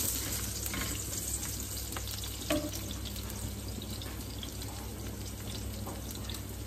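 Chopped shallots and garlic sizzling in oil in a wok, with spatula stirring at the start, scattered small crackles, and one short knock about two and a half seconds in.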